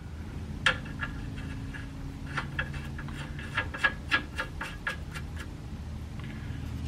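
Irregular sharp clicks from hand-tool work on the front suspension bolts, several a second at times, over a steady low hum.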